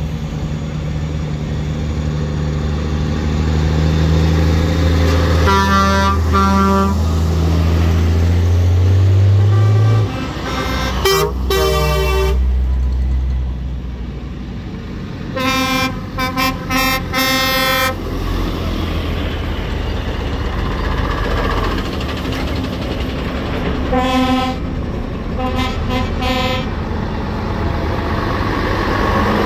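Old vehicles driving past, one heavy engine note rising in pitch for about ten seconds before falling away. Horns are tooted in several clusters of short blasts.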